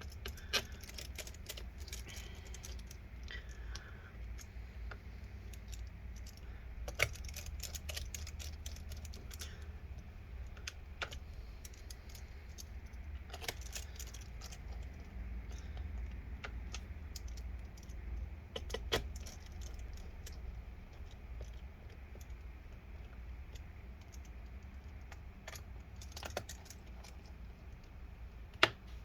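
Screws being driven back into a laptop's plastic bottom cover with a small Phillips screwdriver: scattered light clicks and ticks of the driver bit and screws, with a sharper click every few seconds, over a steady low hum.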